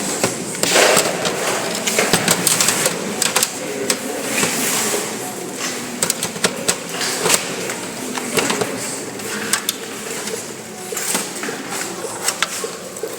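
Irregular clicks, taps and knocks of computer parts being handled and fitted back into a desktop system unit.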